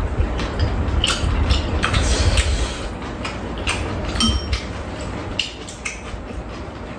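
Metal spoons and chopsticks clinking and scraping against bowls and a metal tray while two people eat, in scattered short clicks. A low rumble runs through the first three seconds or so.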